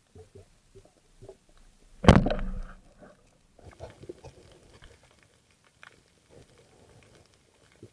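Speargun fired underwater about two seconds in: one sharp, loud shot with a short ringing tail, the spear striking a fish. Faint scattered clicks before and after.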